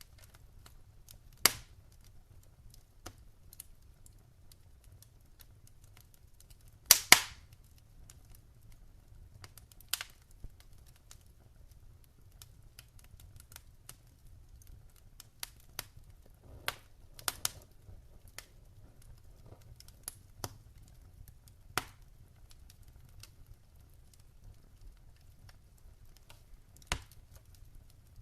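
Wood fire in a fire pit crackling, with scattered sharp pops over a low steady rumble; the loudest is a double pop about seven seconds in.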